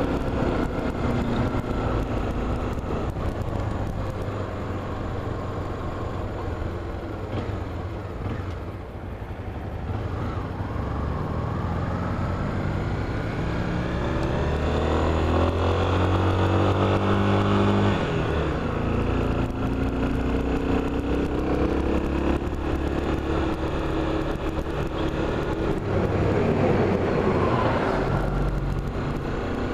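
Vehicle engine driving under acceleration, its pitch climbing and then dropping at gear changes, twice, over steady road and wind noise.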